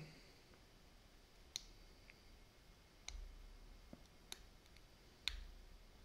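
Faint, scattered metallic clicks of a thin Peterson hook pick working the pins inside a four-pin padlock held under medium tension, about six clicks over a few seconds, two of them with a dull bump.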